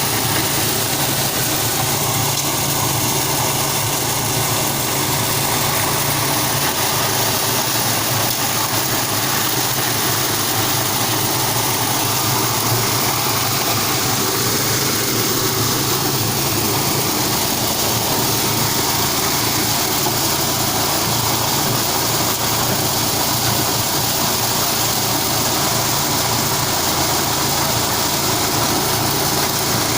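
Engine-driven corn machine running steadily, a constant low engine hum under a dense, even rushing noise with no change in speed.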